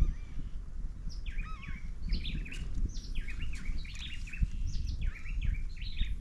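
Birds calling in quick, curling chirps, several phrases in a row starting about a second in, over a steady low rumble.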